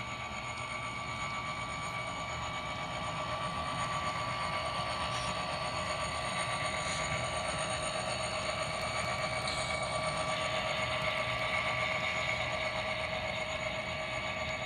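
Model train running past on the layout: a steady whir and whine from the model diesel locomotives and their freight cars rolling on the track, growing a little louder over the first few seconds.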